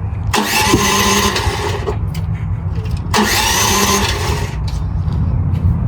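Mini skid steer's starter cranking the engine in two bursts, the first longer than the second, without it catching; the machine is thought to have no fuel in it.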